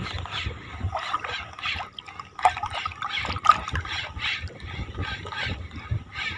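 Small sea waves lapping and trickling at the water's edge, a busy, irregular wash of little splashes.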